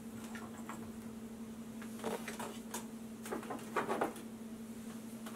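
Small handling sounds at a soldering bench: a few light clicks and scratches as the soldering iron goes back toward its stand and the wires are handled. They come in a group about two seconds in and another near four seconds, over a steady low hum.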